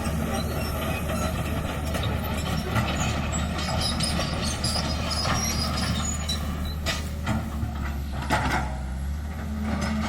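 Hydraulic excavator working, its diesel engine running steadily, with sharp metallic clanks or squeals about seven and eight and a half seconds in.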